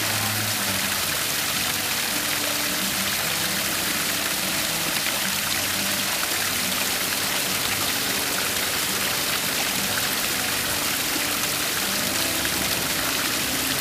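Small waterfalls splashing steadily into a rock pond: an even rush of falling water.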